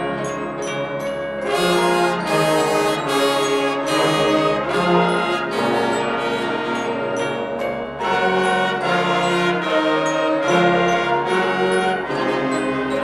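Concert band playing, brass leading with sustained chords, with glockenspiel or bell strokes at the start and returning near the end.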